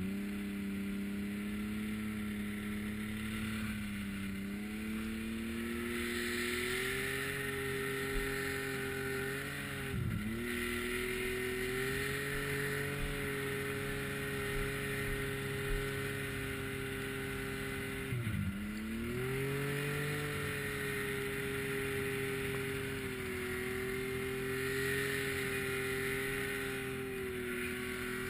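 Snowmobile engine running steadily at speed through deep powder, with a hiss above it. Its pitch drops sharply and climbs back twice, about a third of the way in and again about two-thirds in, as the throttle is let off and reopened.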